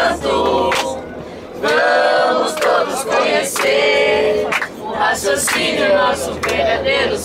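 A busload of passengers, women's and men's voices, singing a song together in chorus inside a coach.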